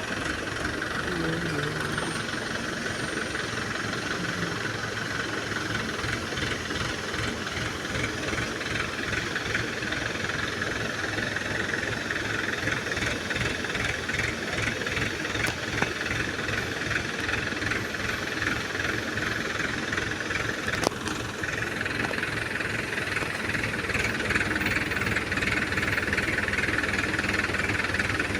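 Diesel engine of a 14-ton Hydra pick-and-carry crane running steadily while the crane works, with a fast, continuous rattle. It grows slightly louder near the end.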